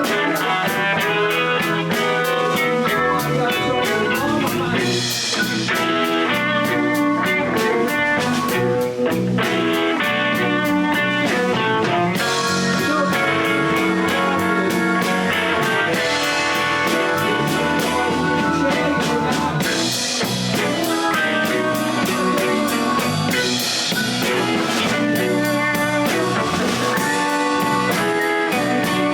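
Blues band playing, a guitar lead over a drum kit keeping a regular beat.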